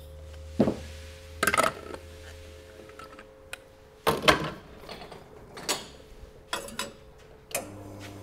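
Metal knocks and clanks as an espresso portafilter is handled and locked into the group head of a La Marzocco GB5 X, the loudest about 4 seconds in, followed by a few lighter clinks. Near the end the machine's pump starts with a steady hum as the shot begins.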